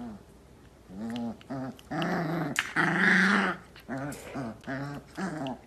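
A merle puppy making a string of short, high play growls and whines while mouthing an adult dog's face, with a rougher, louder growl about two to three seconds in and quicker little yaps near the end.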